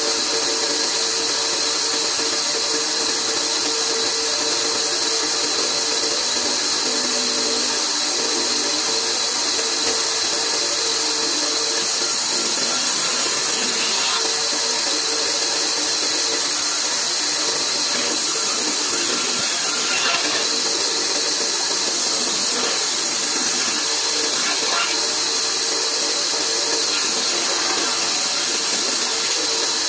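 Large bandsaw running steadily while its blade cuts through a wooden plank: an even, high hiss over a steady hum.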